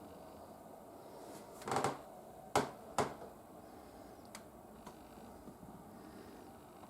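A short rustle, then two sharp clicks about half a second apart, followed by a couple of faint ticks.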